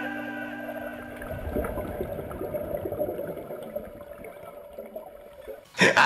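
Underwater bubbling and gurgling of scuba divers' exhaled air streaming from their regulators, as the tail of a tune fades out in the first second. Just before the end a loud sound with rapid, even pulses cuts in abruptly.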